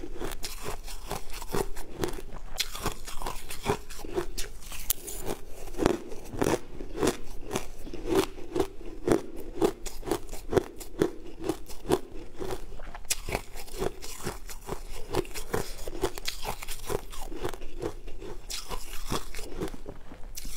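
Close-miked chewing of a mouthful of shaved ice: a rapid, uneven run of crisp crunches, several a second.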